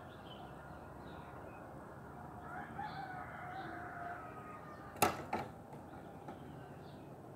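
A rooster crowing once, one drawn-out call of about two seconds. A sharp knock comes about five seconds in, with a smaller knock just after.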